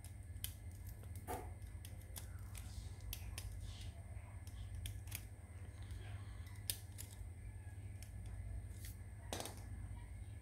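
Scattered light metallic clicks and scrapes of pliers tips working the brass retainer nut of a stainless-steel valve, over a steady low hum.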